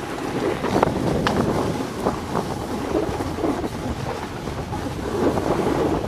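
Wind buffeting the microphone over the hiss and scrape of sliding down packed snow, with a few short, sharper scrapes.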